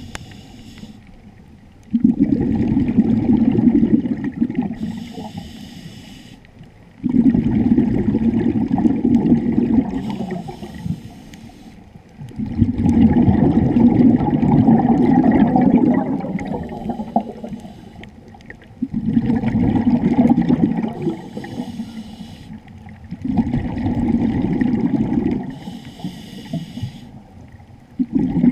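Scuba diver breathing through a regulator underwater: a short hiss on each inhalation, then a longer gush of exhaled bubbles that fades away, the cycle repeating about every five seconds.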